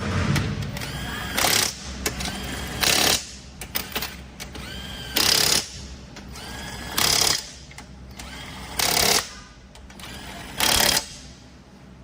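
Power tool running in six short bursts, about every two seconds, running down the bolts of a transmission's torque converter housing.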